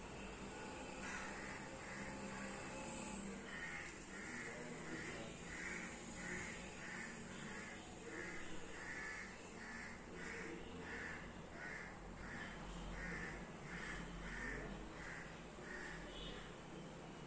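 A crow cawing over and over in a long regular series, about two caws a second.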